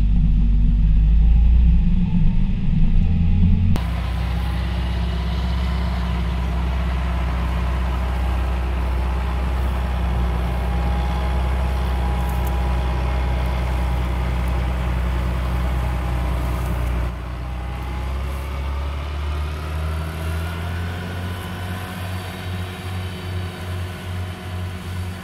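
John Deere farm tractor's diesel engine running steadily under load while mowing. It starts as a heavy rumble, becomes a steady drone with a faint whine after about four seconds, and turns quieter with an even pulsing beat for the last several seconds.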